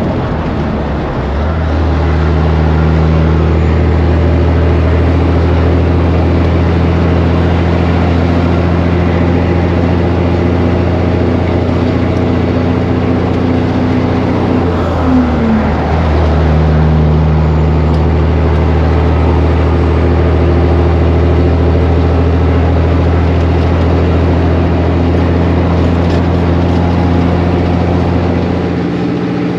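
The diesel engine of an old cabover semi truck pulls steadily under a heavy load. The engine note breaks briefly about halfway through and then picks up again.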